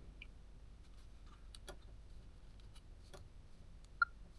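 Faint scattered clicks and ticks from a Samsung NX Mini camera and its 9-27mm zoom lens being handled and tried out after the lens ribbon cable was reseated, with one short, sharper click near the end.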